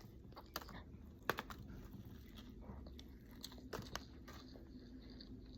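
Faint chewing of a McDonald's breakfast sandwich, with a few scattered crunches and mouth clicks.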